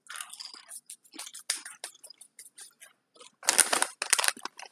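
Crunchy chips being chewed: a rapid, irregular crackle of crunches, with two louder crunches about three and a half and four seconds in.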